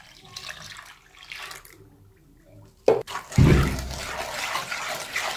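Milk pouring from a jug into a pot of sugar, starch and flour. About three seconds in there is a knock, and then a whisk stirs the milky mixture steadily against the pot.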